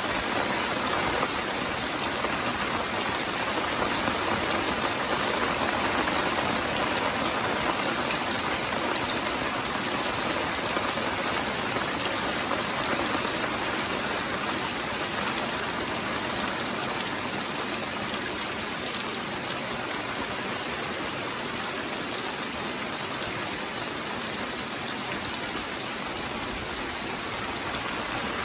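Steady rain: an even hiss of many falling drops, with faint individual drop ticks scattered through it.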